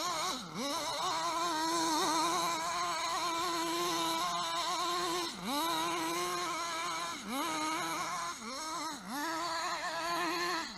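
Radio-controlled car's motor whining at a steady pitch. The pitch drops sharply and climbs straight back up about five times as the speed comes off and picks up again.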